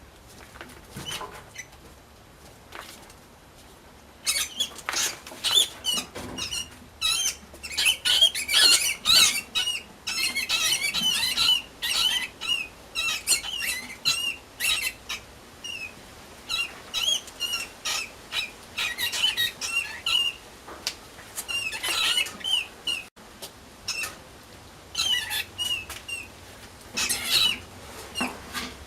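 A mouse squeaking: many short, high squeaks in quick runs, starting about four seconds in, mixed with scratching and rustling clicks.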